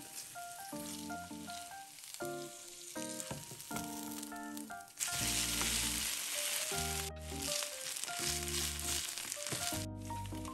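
Shredded potato frying in a nonstick pan: a steady sizzle that gets much louder about halfway through, with light background music playing over it.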